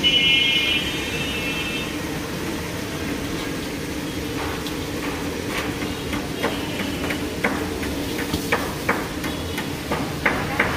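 Chicken deep-frying in a karahi of hot oil with a steady sizzle. Sharp knocks of metal on the aluminium coating bowl start about four seconds in and come faster near the end, and a high tone sounds during the first two seconds.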